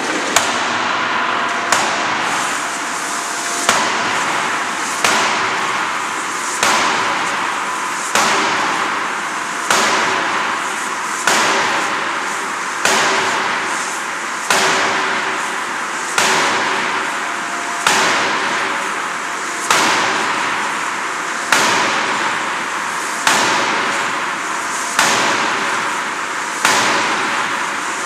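A 16-ton hydraulic closed-die forging hammer striking a red-hot workpiece in its dies, a sharp blow about every 1.7 seconds, each ringing off briefly, over a steady machine hiss and hum.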